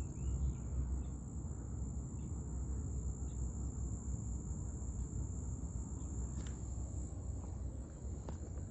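A steady, high-pitched insect trill, most likely crickets, over a constant low rumble, with a couple of faint clicks near the end.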